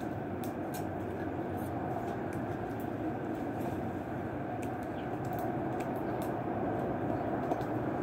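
Steady outdoor background rumble, with faint, scattered light ticks.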